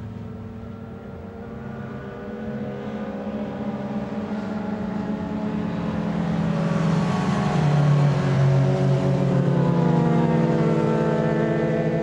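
A pack of racing motorcycles at full throttle, several engines revving and accelerating at different pitches at once. It grows louder through the first half and is loudest about two-thirds of the way in.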